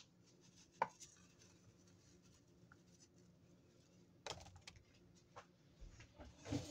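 Ground dried herbs shaken from a container into a glazed ceramic bowl: one sharp tap about a second in, then soft scattered taps and rustles, over a faint steady hum.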